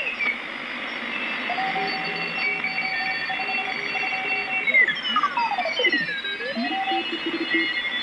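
Morse code (CW) signals from a homebuilt shortwave receiver, several contest stations keying at once over band hiss. The tones slide in pitch as the tuning dial is turned, and settle for a few seconds from about a second and a half in on steadily keyed dots and dashes. They sweep down and back up a little past the middle, then settle again on another keyed signal.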